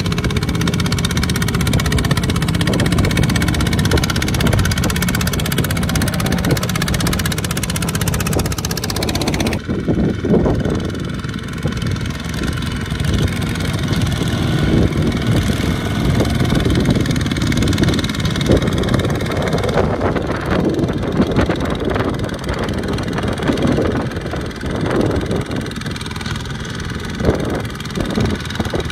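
Two-wheel walking tractors' single-cylinder diesel engines running under load while hauling trailers of rice sacks through deep mud. The sound changes abruptly about ten seconds in, where a different tractor takes over, and is more uneven after that.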